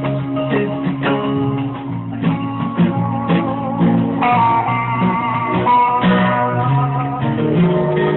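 Guitar music with plucked notes over a lower accompaniment; a brighter, higher melody line comes in about four seconds in.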